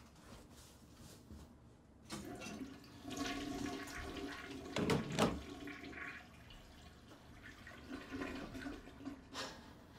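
Toilet flushing: water rushes in about two seconds in, is loudest around the middle, then drains and tapers off. A short click comes near the end.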